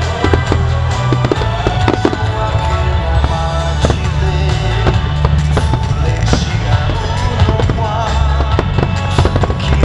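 Aerial firework shells bursting overhead, many sharp bangs in quick succession, over loud music with a heavy bass played along with the display.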